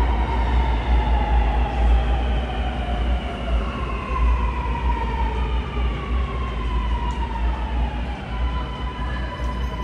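Sydney Metro driverless Alstom Metropolis train approaching through the tunnel and slowing into the station. The whine of its electric traction motors falls in pitch in several tones over a deep rumble, then holds steady near the end.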